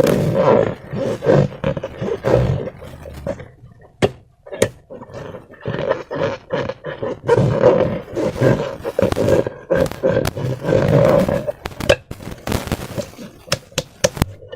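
Rubber balloons filled with slime being squeezed and worked by hand: a rough, growly rasping of stretched balloon rubber and squelching slime in irregular bursts, with a few sharp clicks.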